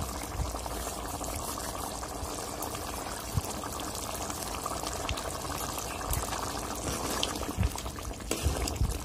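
Potato curry in thin gravy boiling in a steel kadai, a steady bubbling. Near the end a few louder clatters and splashes come as a ladle is moved through it.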